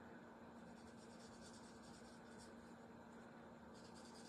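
Faint scratching strokes of an alcohol marker nib on cardstock as an image is coloured in, over a steady low hum.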